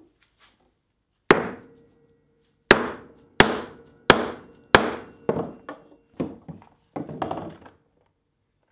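Mallet blows on a round steel cutter, punching a circle out of leather on a wooden bench: about ten knocks, the first five hardest and spaced about a second apart, then lighter, quicker taps near the end, with a faint ringing after the blows.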